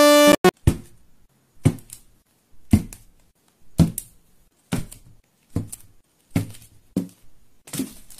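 Slime being pressed and slapped by hand, a series of short soft thuds about once a second, after a brief synth music note at the start.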